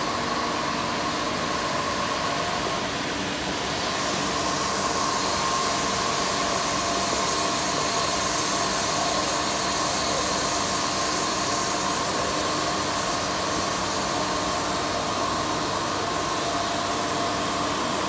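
Steady hum and hiss of a large factory hall, with a few steady tones running through it. The hiss grows a little brighter about four seconds in.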